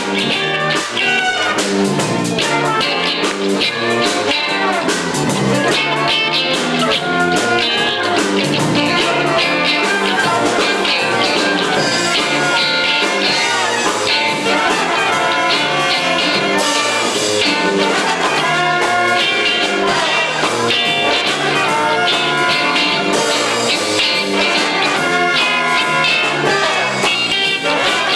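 Music with brass instruments playing.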